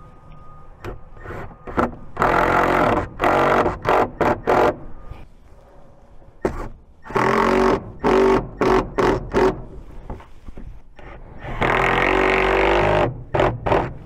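Cordless driver running in three main bursts with short trigger pulses between them, driving stainless screws down through the plastic console floor into the boat deck.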